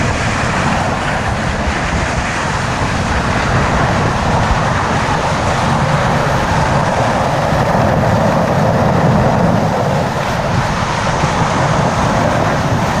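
A vehicle driving: steady engine and road rumble with a constant hiss, unchanging throughout.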